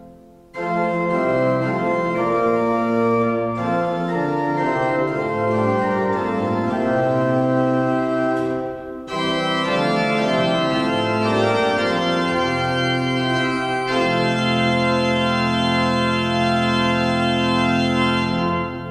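Voit pipe organ playing a slow passage of sustained chords. It breaks off briefly about nine seconds in and fades away near the end.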